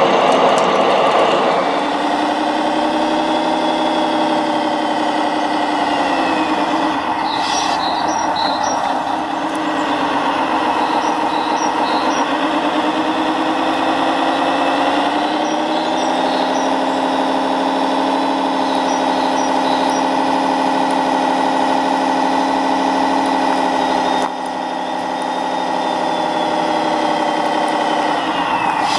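A motor running steadily with a pitched whine that sags in pitch twice and comes back up.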